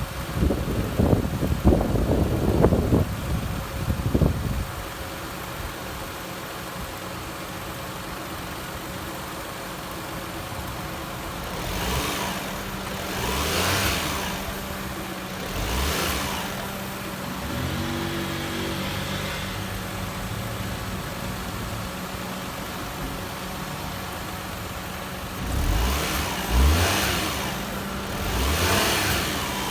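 Daihatsu Mira Gino's small three-cylinder engine idling with the air-conditioning compressor running while the system is charged with refrigerant. The engine is revved briefly several times, about twelve seconds in and again near the end. Irregular rumbling on the microphone comes in the first few seconds.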